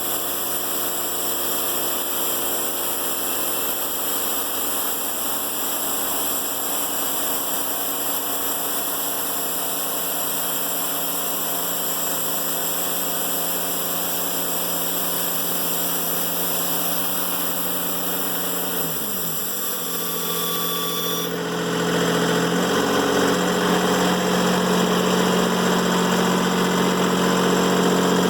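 Timberking 1400 band sawmill running through a cut in a black locust log: a steady engine drone under a high cutting hiss. About 19 seconds in the engine's pitch dips, the hiss stops a couple of seconds later, and the engine then runs on steadily and a little louder.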